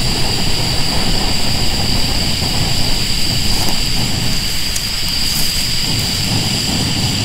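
Portable camp stove burner running with a steady rushing hiss under a pot, with a few faint clicks of cookware.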